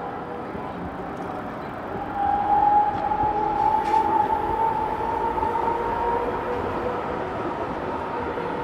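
Electric street tram passing close by, its drive giving a steady whine over the noise of the wheels on the rails. The whine rises slightly in pitch and gets louder about two seconds in as the tram speeds up.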